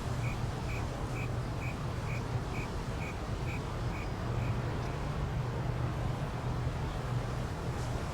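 Outdoor night ambience: a steady low hum under a constant hiss, with a regular series of short high chirps, about two a second, that stops about halfway through.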